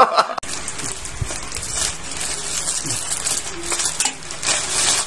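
Plastic courier pouch crinkling and rustling as it is handled and opened with scissors. A burst of laughter at the very start cuts off abruptly.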